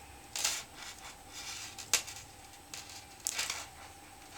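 Small handling sounds of craft work on a desk: a few short rustles and scrapes and one sharp click, as beads and string are worked by hand.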